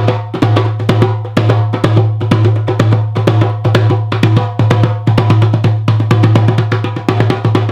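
A drum played in a fast, steady rhythm, several strikes a second, over a steady low tone.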